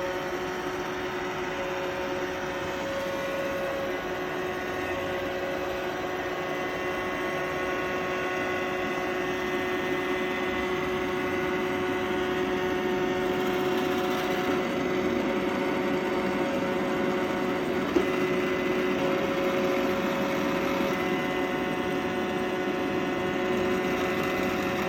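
Roomba robot vacuum running, its motors giving a steady whir with a constant whine, slightly louder in the second half, and a single sharp click partway through.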